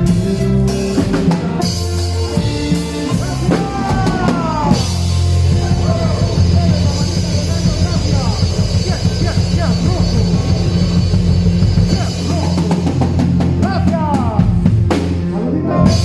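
A band playing live, with drum kit, bass drum and a strong bass line running throughout, plus gliding pitched notes or voices over the top.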